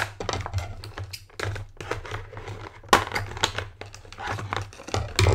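Toy packaging crinkling and rustling in irregular bursts as a small toy monkey is worked free from its ties and package.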